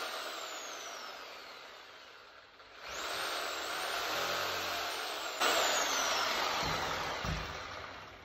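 Corded electric reciprocating saw running unloaded: its motor whine falls away as it winds down, starts again with a rising whine about three seconds in, gets louder a couple of seconds later, and winds down once more near the end.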